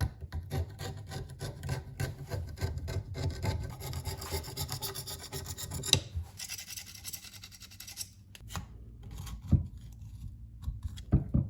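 Fast, repeated scraping and rubbing from hand work on parts, followed by a short hiss and a couple of sharp knocks near the end.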